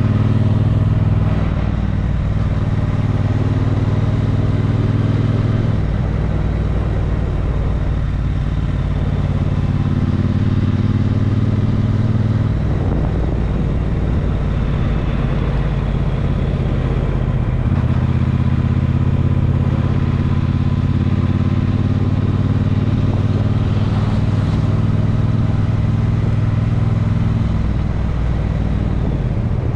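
A motor vehicle's engine running steadily while being driven, its note shifting in pitch several times.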